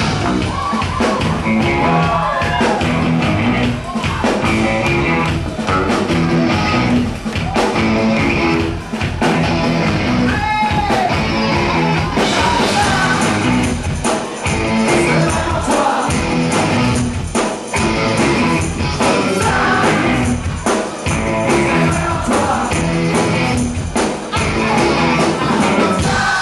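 Live rock band playing with a sung lead vocal, heard from within the crowd at a club concert.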